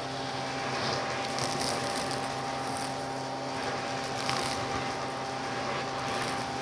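Bissell PowerLifter vacuum cleaner running steadily with a constant motor whine, its hose sucking up sand and small beads from a shag rug, with several short gritty rattles as debris goes up the hose.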